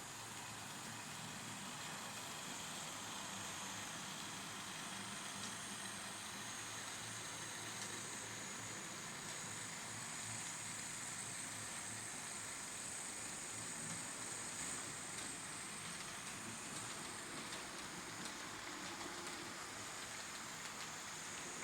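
H0-scale model train running on the layout: a steady high motor whine over an even rolling hiss, shifting slightly in pitch as it goes.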